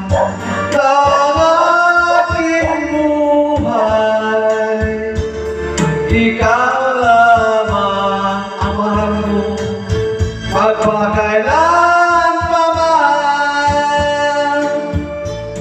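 A man singing a ballad into a videoke microphone over a karaoke backing track, with long held notes that slide between pitches.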